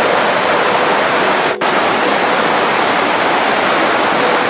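Floodwater rushing through dam sluice gates and over a weir: a loud, steady rush of turbulent water, broken once briefly about a second and a half in.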